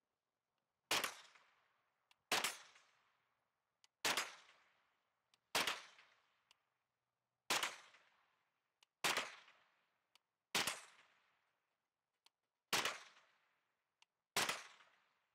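Smith & Wesson FPC folding pistol-calibre carbine fired nine times, single shots about one and a half seconds apart. Each shot trails off in a short echo, with faint clicks between shots.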